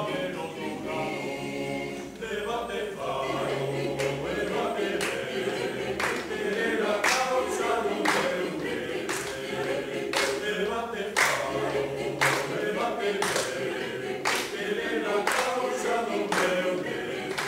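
Mixed choir of men's and women's voices singing a cappella. Sharp rhythmic accents come about once a second through most of the passage.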